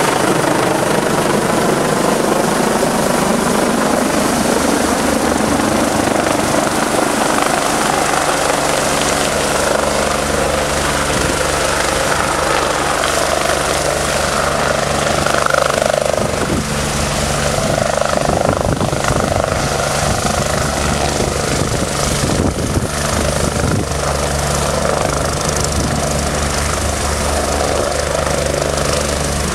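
Air ambulance helicopter landing: a loud, even rotor beat and turbine sound as it comes in low overhead and hovers. The sound settles into a steadier hum once it is down on the pad with the rotor still turning.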